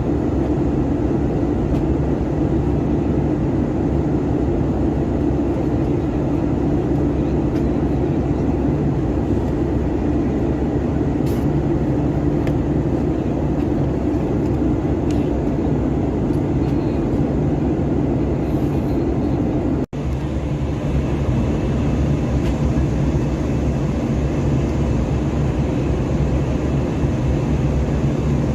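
Airbus A321 jet engines running with a steady, loud hum and rush of noise, broken by a brief dropout about two-thirds of the way through.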